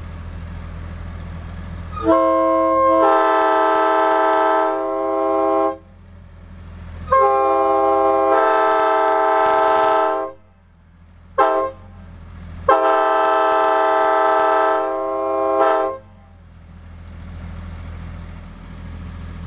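1980s-built Nathan K5LA five-chime locomotive air horn sounding three long blasts and one short toot between the second and third. Each blast is a steady multi-note chord that starts with a couple of notes, the rest of the chimes filling in within about a second.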